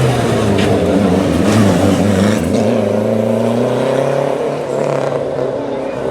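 Rally car engine running hard, its pitch dropping and climbing again several times as it revs up and down through the gears.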